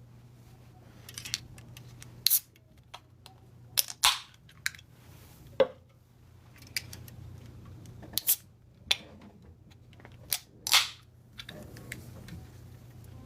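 About a dozen sharp clicks and knocks at irregular intervals, the loudest about two seconds in, four seconds in and near the end, over a faint steady low hum.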